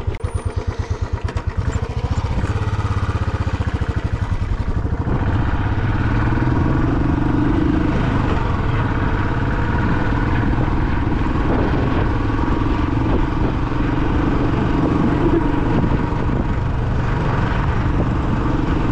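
Royal Enfield Bullet's single-cylinder four-stroke engine running in even low pulses, picking up about two seconds in and again a few seconds later, then holding steady as the bike rides on. The exhaust note is subdued, with hardly any sound, as the rider puts it.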